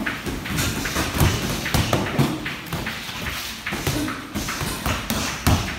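Boxing gloves landing in sparring: irregular thuds and taps, several strong ones about a second in, near two seconds and near the end, with feet shuffling.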